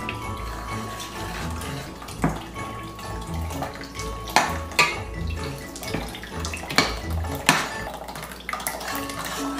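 Metal spoon scraping and clinking against a stainless steel pot while stirring in milk that is being poured in, with about five sharp clinks.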